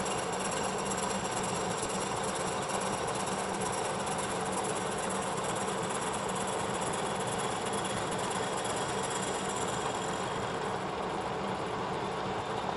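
Kearney & Trecker 2HL milling machine running steadily at 550 RPM while a face mill takes a slow-feed finishing pass across a cast iron workpiece.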